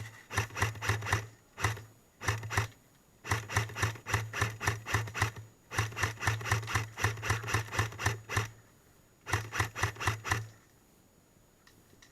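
Airsoft electric gun firing full-auto in seven bursts of rapid, evenly spaced shots, about six a second, each with a low gearbox motor hum under it; the longest burst lasts about two and a half seconds, and the firing stops a little before the end.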